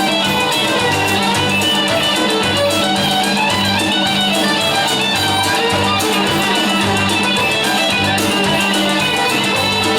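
Instrumental rock music: a violin melody over guitars, with a steady bass and drum beat.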